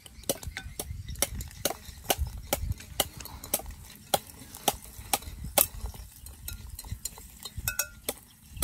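Chopsticks clicking and scraping against a clay pot as caramel sauce is stirred, sharp irregular clicks a few times a second. A low rumble of wind on the microphone sits under it.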